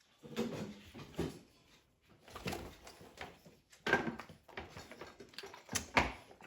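Dogs eating and moving about, with irregular knocks and rustles and a few brief low animal sounds. The sharpest knocks come about four and six seconds in.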